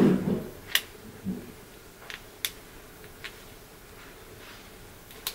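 A few small, scattered clicks of a plastic sunglasses frame and replacement lens being pressed together by hand as the lens is pushed into the Oakley Crankcase frame's groove to seat it.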